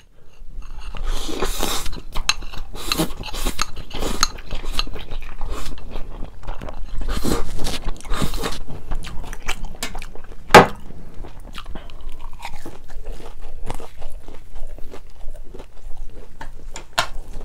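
Close-miked eating of Buldak fire noodles: chewing with wet slurping mouth sounds, the plate held at the lips. About ten and a half seconds in there is a single sharp knock.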